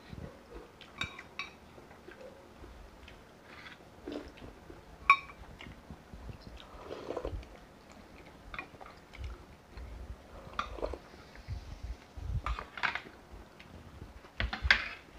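Eating sounds: chewing, with scattered clinks and taps of a spoon against plates and bowls, the sharpest clink about five seconds in.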